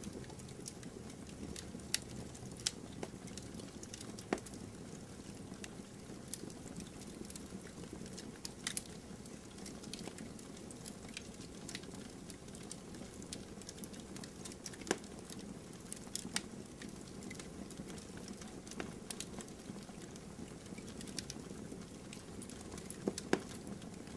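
Wood fire crackling: a steady hiss with irregular sharp pops.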